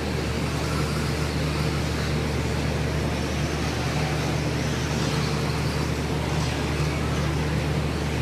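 Radio-controlled stock trucks racing on an indoor dirt track, their motors whining and rising and falling as they speed around, over a steady low hum.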